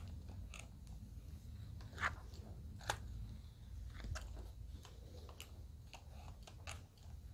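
Hair straightening iron pressing and gliding along sections of hair during the pressing stage of a magic straight: irregular crisp clicks and crackles of the plates and hair, the two sharpest about two and three seconds in, over a low steady hum.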